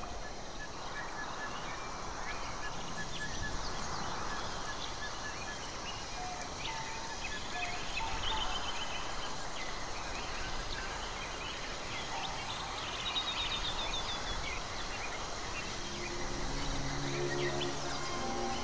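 Outdoor nature ambience: assorted birds chirping and trilling over a steady hiss. Low held musical notes come in near the end.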